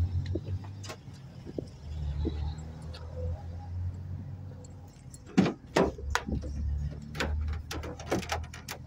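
Ford Transit van's rear cargo door being unlatched and opened, with two sharp clicks about five and a half seconds in and a run of lighter clicks and rattles after, keys jangling, over a low steady hum.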